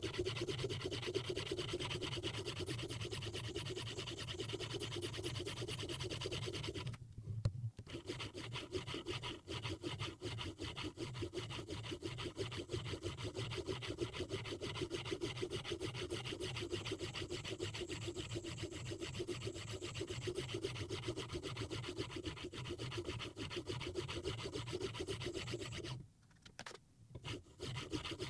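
Hapstone 4000-grit semi-natural quartz sharpening stone stroking along the steel edge of a Mora Bahco knife clamped in a Hapstone RS guided sharpener: a continuous gritty rasping, broken by a brief pause about a quarter of the way in and another near the end.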